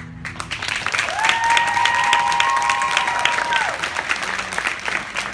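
Applause from a small crowd, individual claps audible, starting just as the last held note of the music stops. About a second in, one spectator lets out a long, steady high-pitched cheer that rises in, holds for a couple of seconds and falls away.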